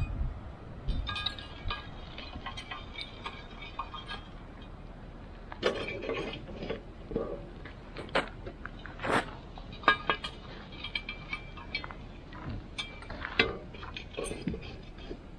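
Small metal shovel scooping hot coals from a steel fire pit and tipping them onto the cast-iron lid of a Lodge Cook-It-All. Coals clink and scrape irregularly, with several sharper metal knocks in the middle.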